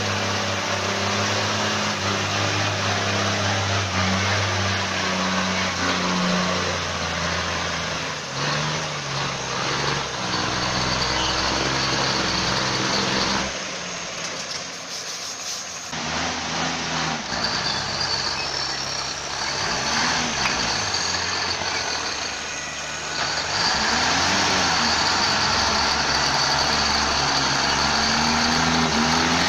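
Heavy diesel engine of a loaded log truck working hard, its pitch rising and falling as it revs under load, with a high steady whine over the second half.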